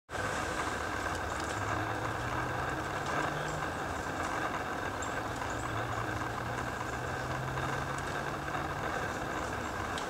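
Steady outdoor background hiss with a low hum that comes and goes, and a few faint, high bird chirps.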